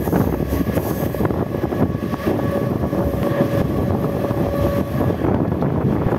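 Mumbai EMU local train running at speed, heard from the side of the moving coach: a steady rumble of wheels on rail with a thin steady whine that fades out about five seconds in, and wind on the microphone.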